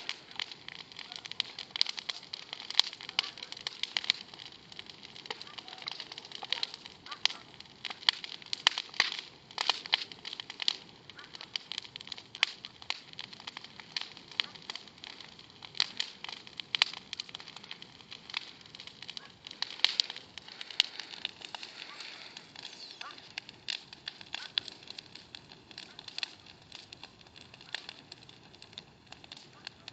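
Small wood bonfire crackling, with many irregular sharp pops and snaps.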